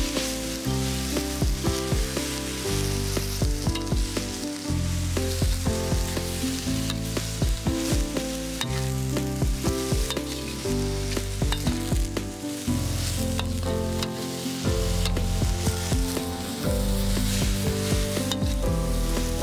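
Shredded green papaya and chilies stir-frying in a metal wok: steady sizzling, with the spatula scraping and clicking against the pan many times. Background music with steady low notes plays underneath.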